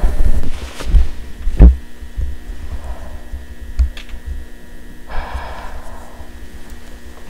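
Heavy low thumps and knocks of a handheld camcorder being jostled as it is carried through a wall opening, three loud ones in the first two seconds and smaller ones after, over a steady low hum. A short rush of noise comes about five seconds in.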